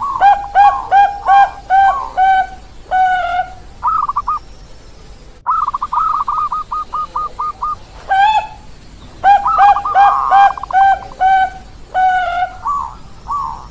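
Zebra doves (Bangkok perkutut) cooing: repeated phrases of short staccato coos, a lower and a higher series often sounding over each other, with a quick even run of rapid coos in the middle.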